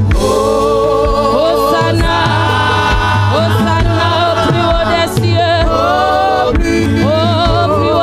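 Gospel worship song: several women's voices singing together into microphones, holding long notes with vibrato, over an accompaniment with a low bass line and a steady beat.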